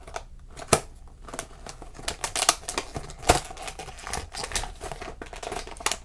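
Plastic and cardboard toy packaging handled by hand: irregular crinkling and crackling with sharp snaps, the loudest a little after three seconds in.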